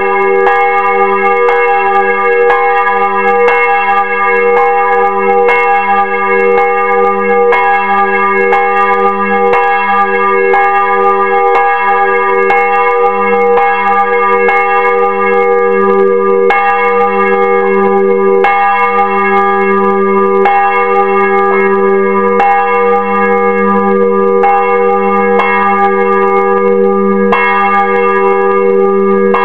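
Swinging church bell, cast by Simon Laudy of Beerta, ringing close up, its clapper striking about once a second over a continuous low hum and layered ringing tones.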